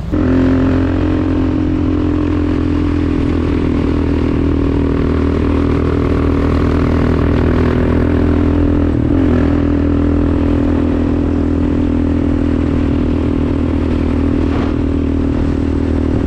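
Four-wheeler (ATV) engine running at a steady speed while riding, with a brief change in its note about nine seconds in.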